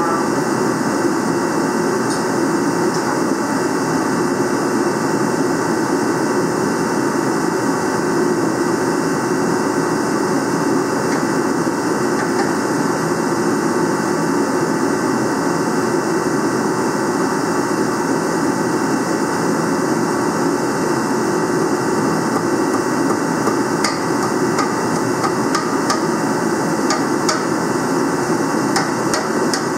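Repeated hammer strikes on a cylinder sleeve, driving it down into the bore of a John Deere 4010 engine block during the overhaul.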